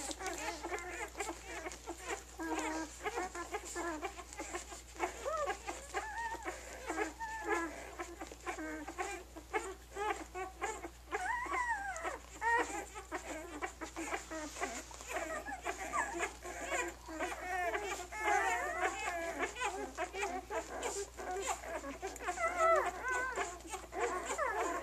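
A litter of newborn German Shepherd puppies squeaking and whining as they jostle to nurse, many short high calls overlapping without a break.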